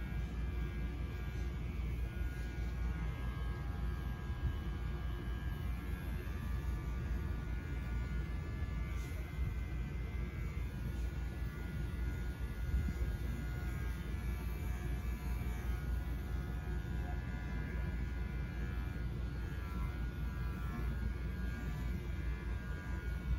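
Electric dog grooming clippers running with a steady buzzing hum.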